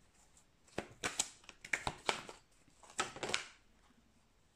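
Tarot cards being shuffled and laid out on a table: two bursts of rapid papery flicks and rustles, the first about a second in and lasting over a second, the second shorter at about three seconds.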